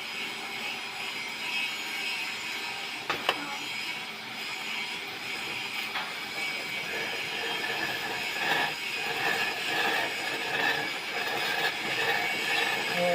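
Stick (shielded metal arc) welding with an E6011 electrode while running a root pass on pipe: a steady, harsh arc crackle and hiss, with a sharp click about three seconds in.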